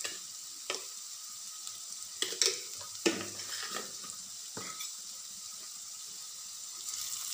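Cubed red pumpkin frying in a steel kadhai: a steady sizzle, with a few short clicks and pops scattered through it.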